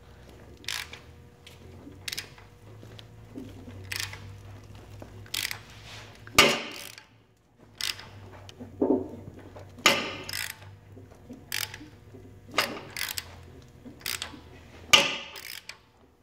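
Hand ratchet wrench clicking in short, unevenly spaced strokes as a Honda/Acura J-series V6's crankshaft is turned over by hand at the crank bolt, hard going against compression with the spark plugs still in.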